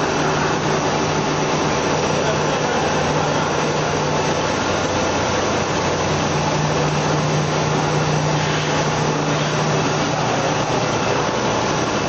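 Kraft paper making machine and its electric drive motors running: a steady, even mechanical noise with a low hum underneath that drops out for about a second near the middle.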